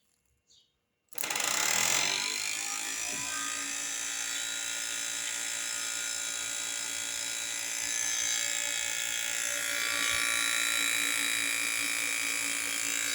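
Two Nissan radiator cooling fans with electric motors, run off the car, switch on about a second in, spin up and then run steadily with a motor whir and a broad noise of moving air. Both motors are working; one is a little noisier, which the owner thinks may be down to the position it sits in.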